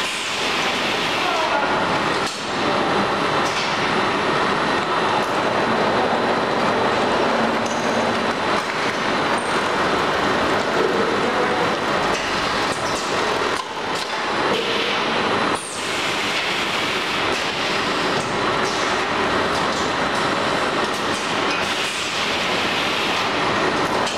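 Automatic woven-bag powder packaging machine running: a loud, steady mechanical clatter and rush of machinery noise, dipping briefly a few times.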